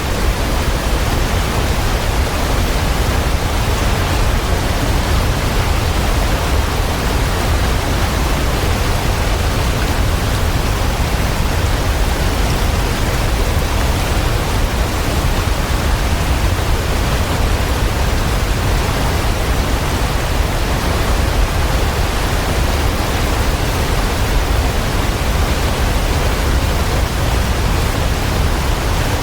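Waterfall: falling water making an unbroken, even rushing noise with a heavy low rumble, unchanging in level.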